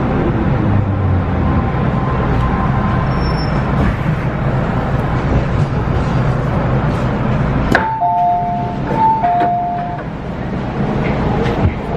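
MTR Tsuen Wan Line metro train running with a steady rumble. About eight seconds in the rumble drops off abruptly and a two-note electronic chime sounds twice, high then low, before the train noise picks up again.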